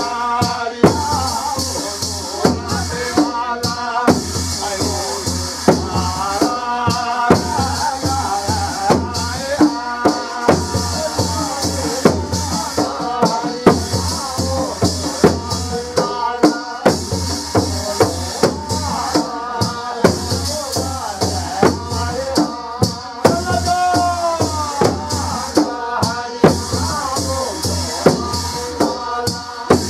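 Traditional Himachali devotional folk song to Shiva: singing over drum beats that strike about once a second, with a constant high jingling of shaker-like percussion.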